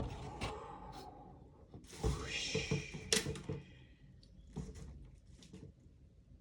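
Packaging being handled as a camera is unboxed: a sharp click, a few knocks, and a rough sliding scrape lasting about a second and a half, followed by a few light taps.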